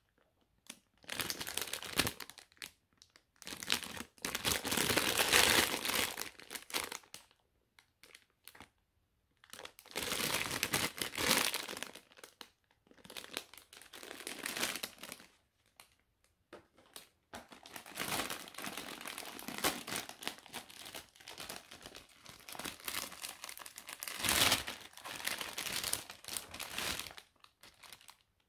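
Clear cellophane candy bag crinkling as it is handled and opened, in several bouts with short pauses between.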